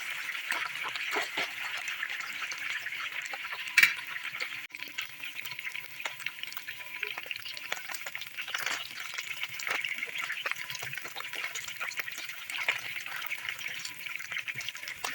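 Fish frying in hot oil: a steady crackling sizzle dotted with small pops, with one sharper knock about four seconds in.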